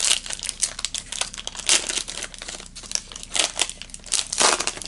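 Plastic cello wrapper of a Panini NBA Hoops fat pack being torn open and crinkled in the hands: a run of crackles with a few louder bursts.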